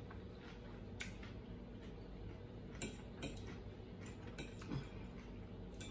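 A metal fork clicking and scraping faintly against a plate of food, about half a dozen light clicks spread out, over a low steady background hum.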